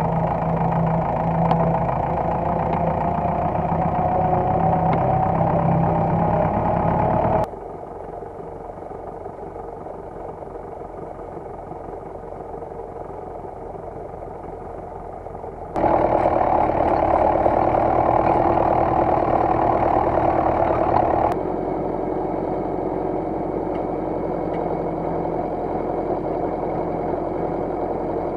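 Massey Ferguson 35 tractor engine running steadily under load while pulling a harrow through tilled soil. A slowly rising whine sits over the engine near the start, and the sound drops and jumps abruptly in level three times as the footage cuts.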